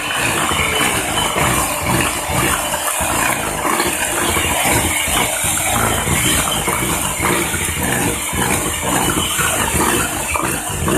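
Electric kitchen mixer running steadily, its beaters churning wet sweet potato cheesecake batter.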